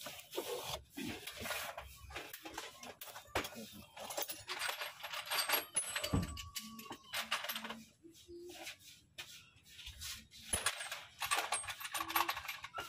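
Metal hand tools clinking and clattering: an irregular run of short clicks and rattles, as of sockets and wrenches being handled.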